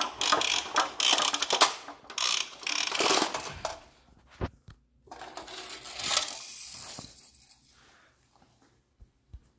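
A plastic toy tower's crank mechanism being turned: rapid rattling plastic clicks for about four seconds, then fainter, scattered clatter that dies away.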